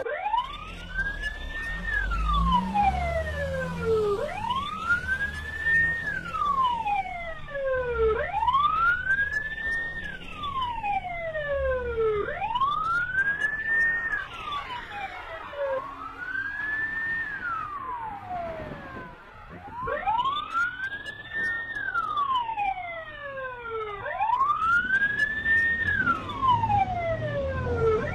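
Police siren wailing: a slow wail that climbs for about two seconds and falls for about two seconds, over and over.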